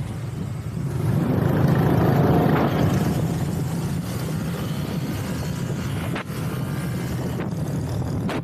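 Motor scooter pulling away and riding, its engine running under steady road noise; it gets louder about a second in.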